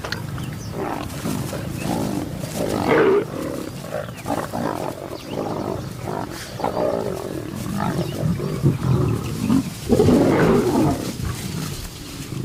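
Lions growling over a kill in irregular outbursts, loudest about three seconds in and again about ten seconds in.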